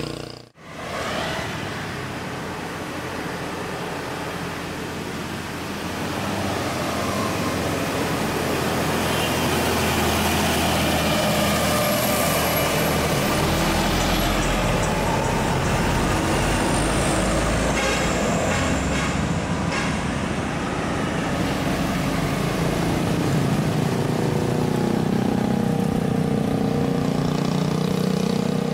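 Truck engines labouring up a steep mountain road, with other traffic. One heavy vehicle passes close about halfway through.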